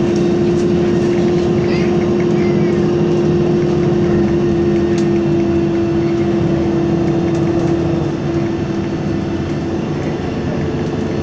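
Inside an Isuzu Citibus midibus under way: the engine and drivetrain run with a steady whine over a low rumble, with road noise. The level eases off slightly about eight seconds in.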